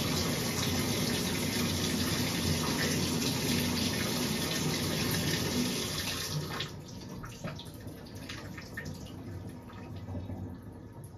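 A steady rush like water running from a tap, which stops abruptly about six and a half seconds in. A few faint clicks and knocks follow.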